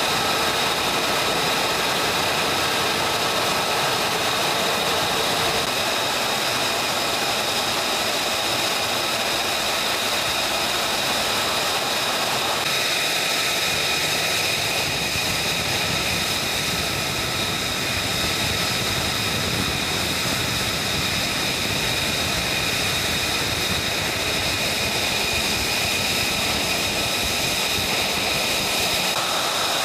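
F-35 Lightning II's Pratt & Whitney F135 jet engine idling: a steady rush with a high whine held on several pitches, which changes about twelve seconds in.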